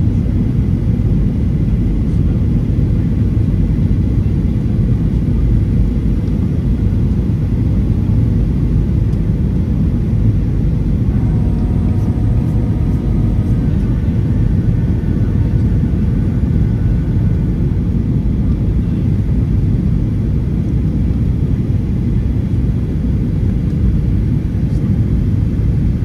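Steady low rumble of engine and airflow noise inside the cabin of a Boeing 737-800 with CFM56-7B engines, heard from a window seat.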